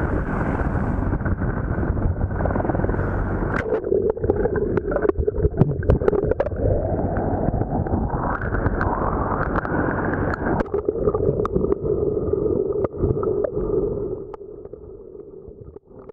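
Choppy seawater splashing and rushing around a waterproof camera at the surface, under the downwash of a hovering heavy helicopter whose rotor and engine noise mixes in with a steady hum. About 14 seconds in the camera goes underwater and the sound turns muffled and much quieter.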